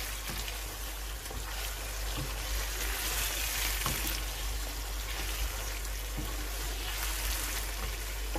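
Chicken korma masala sizzling in oil in a pot while freshly added yogurt is stirred in, with a few light knocks of the spoon against the pot.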